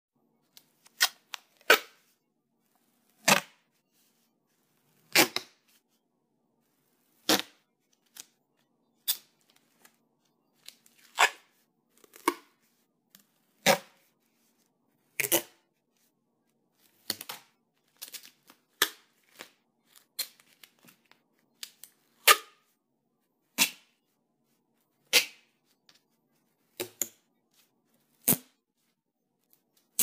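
Duct tape being ripped in a series of short, sharp rips, one every second or two with silence between, some in quick pairs.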